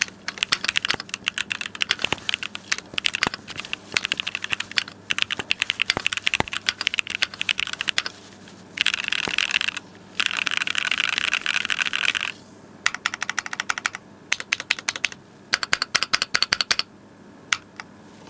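Keychron Q4 mechanical keyboard with Gateron Yellow linear switches and PBT keycaps being typed on for a sound test. Runs of quick keystrokes come in bursts, with two stretches of very fast continuous typing a little after the middle and short gaps between bursts toward the end.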